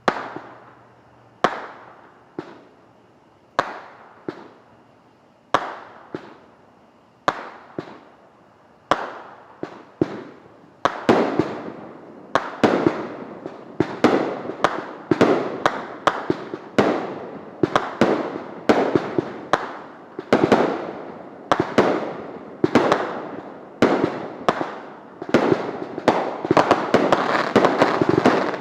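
Liberty Bell brand consumer fireworks going off in a long run of sharp bangs. They come about one every second or two at first, then faster and overlapping from about halfway, each bang trailing off.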